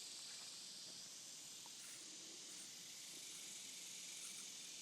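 Faint, steady high-pitched hiss of an insect chorus, crickets or similar, without letup.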